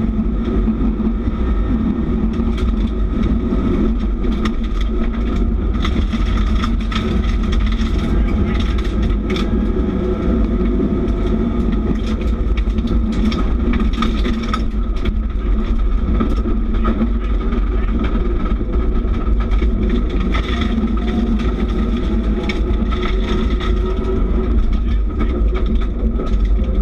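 Subaru rally car's flat-four engine pulling hard through the gears, heard inside the stripped cabin over steady tyre and road rumble. Gravel and stones rattle against the underbody in many short clicks.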